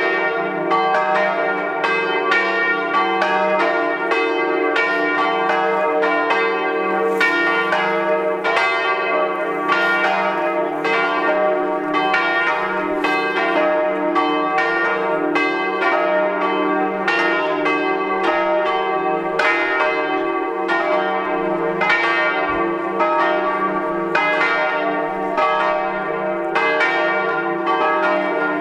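Swinging bronze church bells of a five-bell diatonic set in E-flat ringing together. Strokes come about two a second and overlap, over a steady low hum of the bells' ringing tones.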